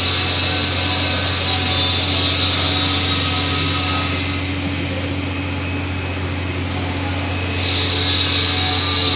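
TIG welding arc giving a steady hiss over a low electrical hum. The hiss softens for a few seconds in the middle, then comes back.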